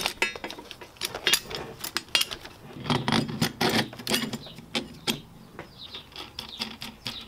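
Irregular metallic clicks, clinks and knocks from a coilover being assembled by hand: the coil spring, washers and aluminium top mount are slid and seated onto the shock body and shaft.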